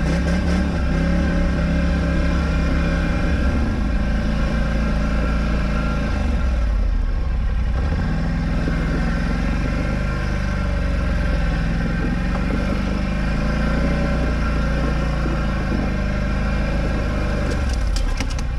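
Polaris Scrambler XP 1000 ATV's twin-cylinder engine running as the quad is ridden slowly along a rough trail, the revs rising and falling with the throttle.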